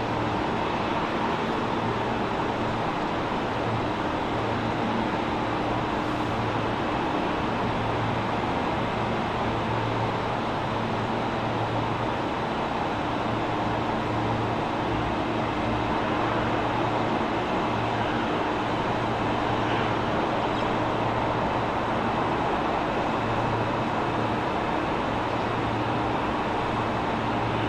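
Steady engine noise: a constant low hum with a faint, even whine above it, holding the same level throughout without rising or fading.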